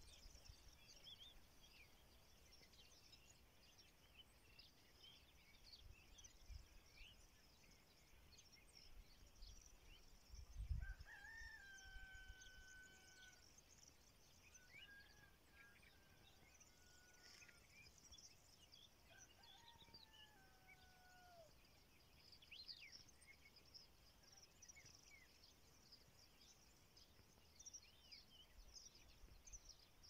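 Faint open-country ambience with small birds chirping throughout. A distant animal gives three long, drawn-out calls a few seconds apart, about a third of the way in. A low thump on the microphone comes just before the first call.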